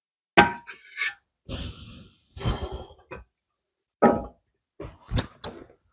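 Metal parts and tools being handled: a series of sharp knocks and clinks, some ringing briefly, with a short breathy hiss about a second and a half in.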